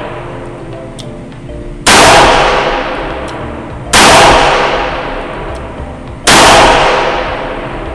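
Taurus 856 Executive Grade .38 Special revolver fired three times, double-action, about two seconds apart, each shot trailing off slowly. Faint background music plays between the shots.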